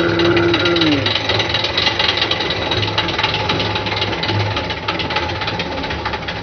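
Manual push reel mower driven hard through long grass: its spinning reel blades clatter against the bed knife in a rapid, continuous run of clicks, chopping the grass. A drawn-out voice sounds over the first second, falling away about a second in.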